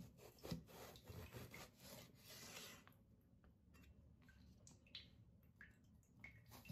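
Faint cleaver cutting lengthwise through a raw long purple eggplant on a wooden cutting board: a few soft taps and scrapes of the blade, with a quiet stretch in the middle.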